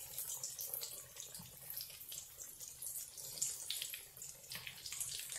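Breaded kebabs shallow-frying in hot oil in a frying pan, sizzling steadily with frequent small crackles.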